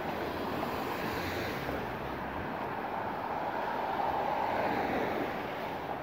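City street traffic: a steady rush of passing vehicles, with one swelling louder around four to five seconds in and then fading.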